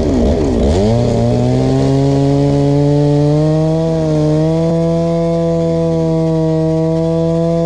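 Stihl chainsaw revved up and down, then held at full throttle from about a second in, running steadily under load as it cuts into a sycamore log.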